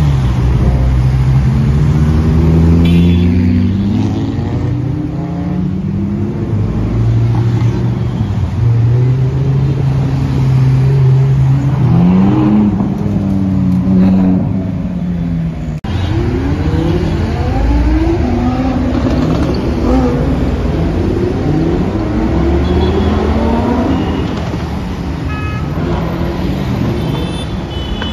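Supercar engines revving and accelerating. Several engine notes overlap, rising and falling, with a brief break about halfway through.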